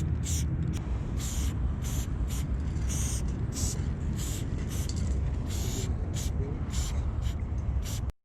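Aerosol spray-paint can sprayed in many short bursts, about two or three hisses a second, over a steady low rumble; the sound cuts off abruptly near the end.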